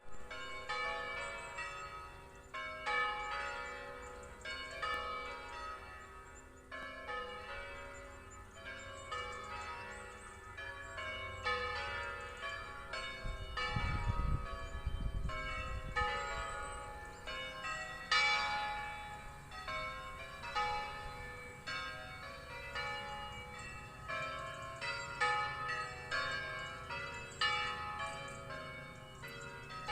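Church bells pealing, several bells struck in quick succession in a repeating pattern. A brief low rumble comes about halfway through.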